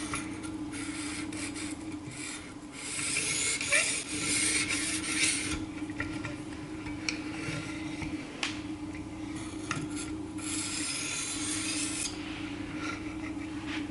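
Knife edge scraping across a sharpening stone in runs of strokes, with pauses between them. The loudest run comes about three to five seconds in, and another about ten to twelve seconds in.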